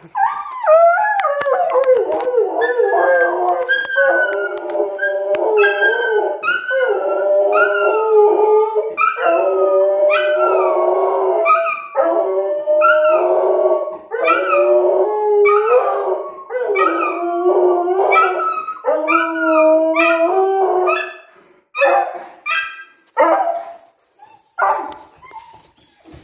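Bernese Mountain Dog howling in a long, wavering, yodel-like run of calls that glide up and down with barely a break, then a few short separate woofs near the end.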